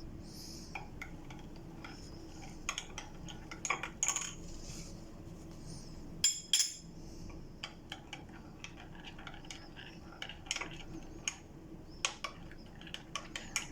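A metal spoon tapping and clinking against coffee cups, in scattered light clicks, with one louder ringing clink about six seconds in.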